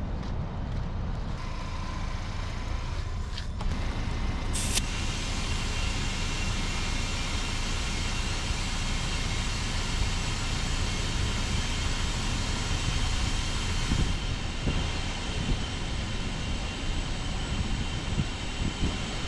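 Steady low rumble of a motor vehicle driving, with a faint steady whine. A short hiss comes about four seconds in, and the noise is brighter after it.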